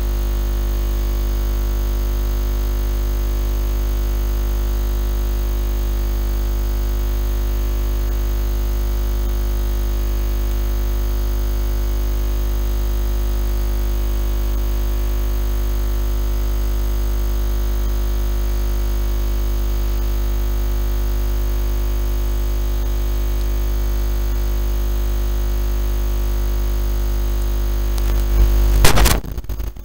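Steady electrical hum made of many constant tones, strongest at the low end, holding an even level. About two seconds before the end, a loud jumbled burst of rustling and knocks breaks in.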